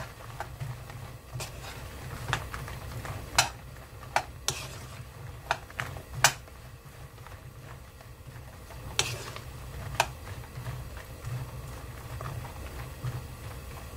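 Wooden spatula stirring shishito peppers in oil in a nonstick frying pan, with irregular clicks and knocks of the spatula and peppers against the pan. A low steady hum runs underneath.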